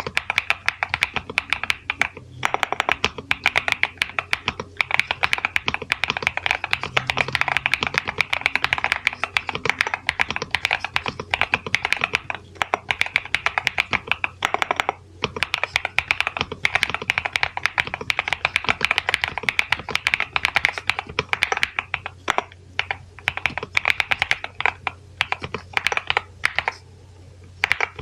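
Fast, continuous typing on a NuPhy Halo96 V2 mechanical keyboard with Mint switches: a dense stream of key clacks, with a brief pause about halfway and fewer, sparser strokes near the end.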